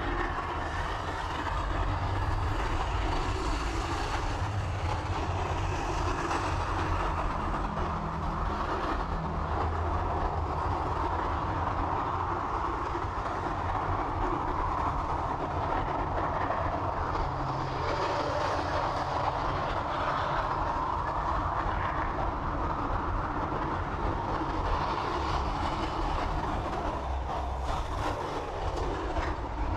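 A moving train: a steady rumble and rolling noise with the clatter of wheels on rails.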